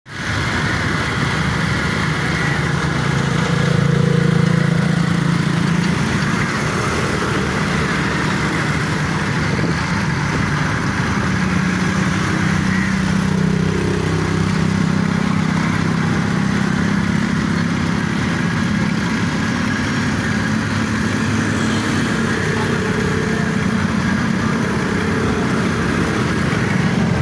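An engine running steadily, its pitch drifting up and down a little, over a constant hiss of noise.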